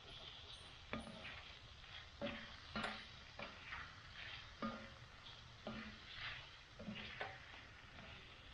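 Utensil stirring food in a cast iron pan, knocking and scraping against the pan about once a second, over faint sizzling of frying food.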